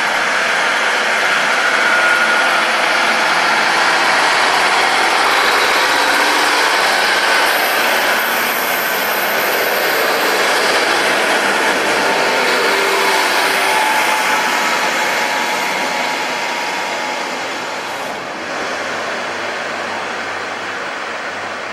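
Class 150 Sprinter diesel multiple unit pulling out and running away along the track, a steady rumble of its underfloor diesel engines and wheels on the rails. Near the end the sound changes abruptly and drops to a quieter run of another Class 150 approaching the platform.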